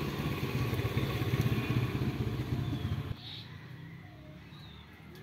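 A nearby motor vehicle engine running with a low, rapidly pulsing rumble that cuts off suddenly about three seconds in. A few faint bird chirps follow.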